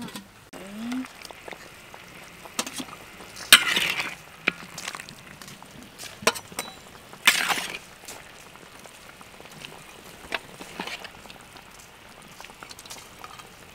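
Metal ladle clinking and scraping against a stainless steel bowl while braised pork legs are ladled in, with scattered light clicks and two louder scrapes, one about three and a half seconds in and one near the middle.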